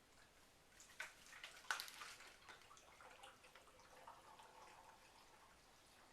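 Water in a pair of plastic soda bottles joined by a tornado tube, dripping and gurgling through the connector. Two sharp knocks come about a second in, and the gurgling fades away over the next few seconds.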